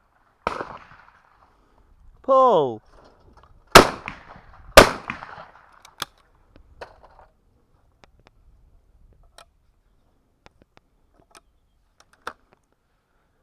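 A shouted 'Pull!' calling for clay targets, then a shotgun fired twice, about a second apart, each shot loud and sharp with a short echo.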